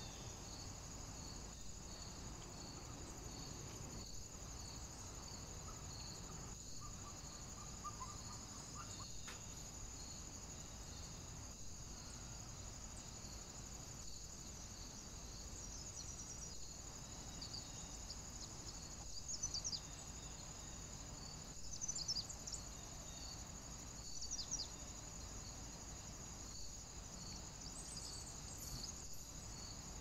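Steady high-pitched insect chorus with a regular pulse, heard through a trail camera's microphone and sped up to double speed. A few short bird calls break in about two-thirds of the way through.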